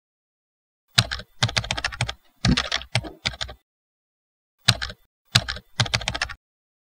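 Computer keyboard typing: two runs of quick keystrokes, the first about two and a half seconds long, then a pause of about a second and a shorter second run.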